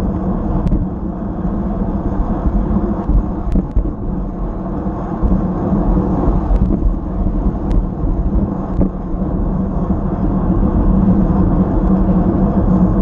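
Wind buffeting an action camera's microphone over the rolling noise of a fixed-gear bicycle racing at about 26 mph: a loud, steady low rumble with a constant hum and a few faint ticks.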